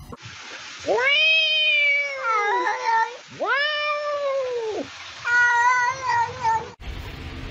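A cat's long, drawn-out meows, three in a row, each lasting well over a second. The first two rise and then fall in pitch; the third is held level.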